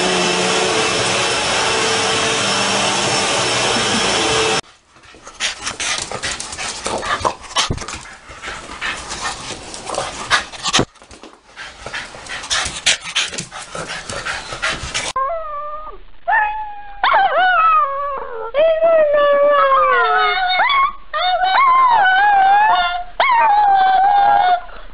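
A vacuum cleaner runs steadily and cuts off suddenly about five seconds in, followed by scattered clicks and scuffling. From about the middle, a small long-haired dog howls in a run of long cries that rise and fall in pitch.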